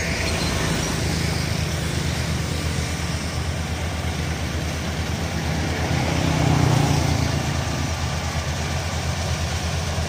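Rice combine harvester's engine running steadily with a low drone as the machine cuts through the paddy, swelling louder for a moment about two-thirds of the way through.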